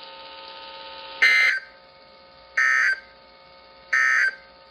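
Three short digital data bursts, evenly spaced about 1.4 seconds apart, from a NOAA Weather Radio broadcast over a faint steady hiss. They are the SAME end-of-message code that marks the close of the alert test.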